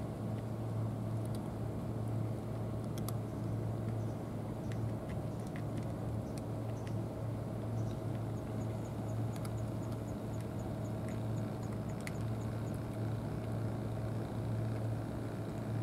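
A steady low mechanical hum, like distant engines or machinery running, with a thin steady tone above it. For a few seconds in the middle a faint, quick, even ticking sounds high up, about three ticks a second, along with a few scattered clicks.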